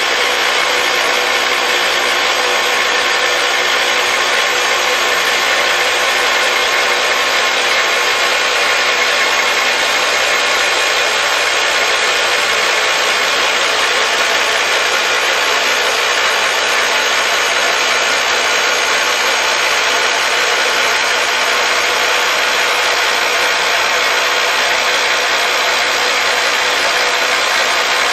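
Rock drill of a DT1-14 face drilling rig boring into a rock face: a loud, steady drilling noise with no breaks.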